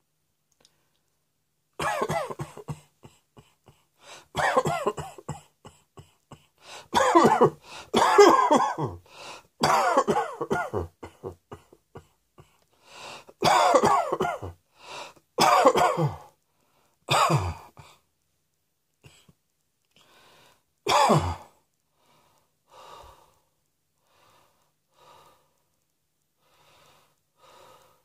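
A person coughing in repeated fits: clusters of hard, rasping coughs through most of the stretch, trailing off to a few faint coughs near the end.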